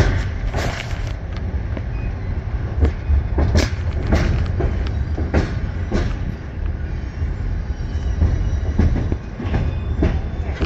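Passenger train rolling slowly across a bridge: a steady low rumble with irregular clicks and clanks from the wheels and cars.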